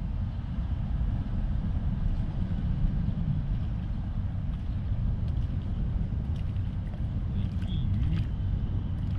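Steady low rumble of traffic on the highway bridge overhead. In the last few seconds, a few short splashes as a hooked fish thrashes at the water's surface.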